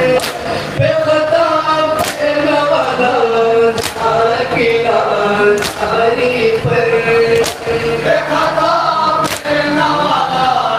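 A group of men chanting a nauha (Shia lament) in unison over microphones. The crowd's matam beats on their bare chests land together as a sharp slap about every two seconds, six times.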